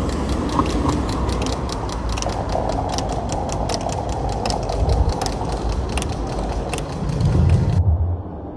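Experimental ambient soundtrack music: dense clicking, crackling and creaking textures over a low rumble. Near the end the crackle cuts off abruptly, leaving only a low drone.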